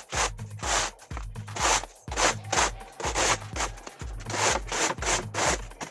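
Manual snow shovel scraping wet snow and slush off pavement in repeated strokes, about two a second.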